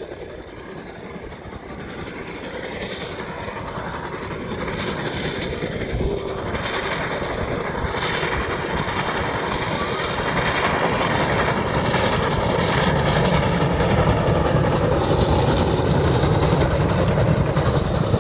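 Steam locomotive hauling a train of passenger coaches, its running and the rumble of the wheels growing steadily louder as it approaches and passes close by.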